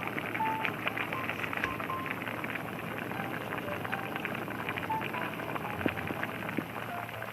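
Food cooking in a pan, with a dense, steady crackle of sizzling and bubbling. Short, soft melodic notes at changing pitches sound over it.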